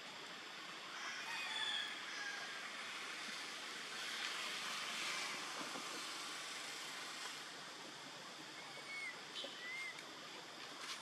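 Outdoor ambience: a faint, steady hiss, with a few short, high chirps about a second or two in and again near the end.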